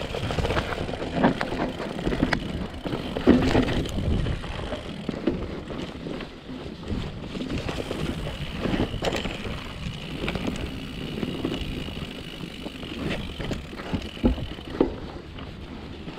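Mountain bike descending a dirt forest singletrack: tyres rolling over the dirt and the bike rattling, with sharp knocks over bumps, the loudest a few seconds in. A steady high buzz runs through most of it and stops near the end.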